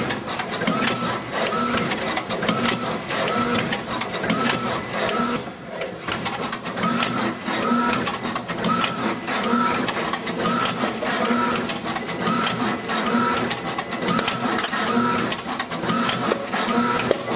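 Suzumo CSS-MSA nigiri rice-ball machine running in production: a steady mechanical clatter of rapid clicks, with a short tone repeating about every three-quarters of a second.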